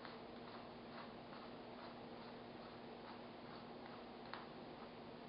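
Hand-twisted stainless-steel pepper mill grinding peppercorns, a faint quick run of clicks at about three a second.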